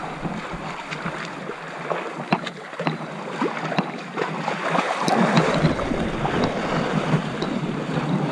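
River water splashing and sloshing around wading elephants, a steady wash with many small splashes that grows louder about five seconds in.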